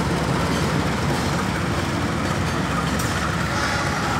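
Railway tank wagons rolling slowly along the track during shunting: a steady low rumble of wheels on rails.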